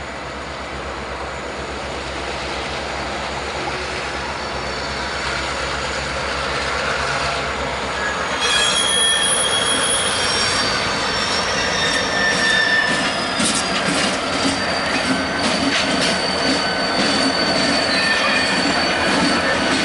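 Diesel road-switcher locomotives running at low speed, the low engine hum growing louder as they come closer. From about eight seconds in, the wheel flanges squeal with high, drawn-out tones, one sliding slowly downward, over clicks from the wheels on the rail joints.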